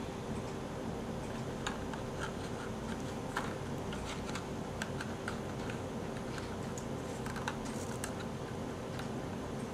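Small, irregular plastic clicks and taps as fingers handle and pry at the canopy of a Walkera V120D02 micro RC helicopter, over a steady low hum.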